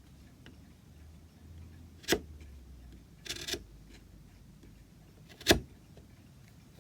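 Two sharp knocks, one about two seconds in and a louder one about five and a half seconds in, with a brief scrape or rustle between them, from wood and tools handled on a workbench; a clock ticks faintly underneath.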